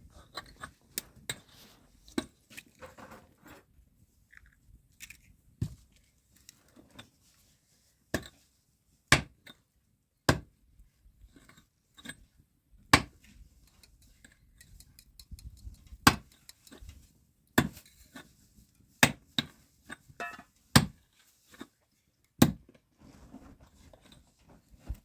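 Irregular sharp knocks and clinks of hard objects, about one or two a second, with quiet between.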